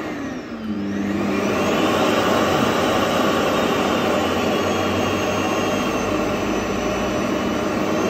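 Vacuum cleaner motor switched up to maximum power. Its whine drops briefly about half a second in, then rises over the next second and runs steadily at full speed.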